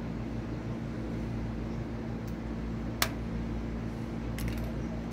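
Steady low hum, like a fan or air conditioner, under small sounds of a laptop being taken apart: one sharp click about three seconds in and a few fainter ticks near the end.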